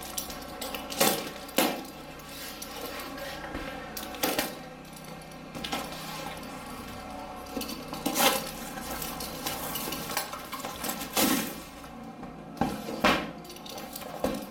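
Scissors cutting and snipping through packing tape and cardboard as a taped parcel is opened and handled, giving a handful of sharp, irregular snaps and crackles several seconds apart.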